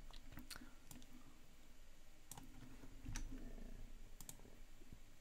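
A few faint, scattered clicks of a computer mouse as a workflow activity is selected and dragged into place.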